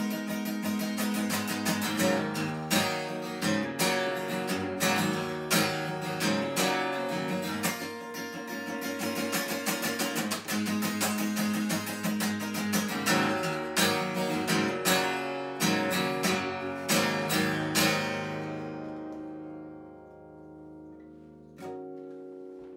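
Sunburst Gibson steel-string acoustic guitar played solo, strummed and picked in a steady rhythm with sharp attacks, then a last chord left to ring out and fade about three-quarters of the way through, with one soft final note struck near the end.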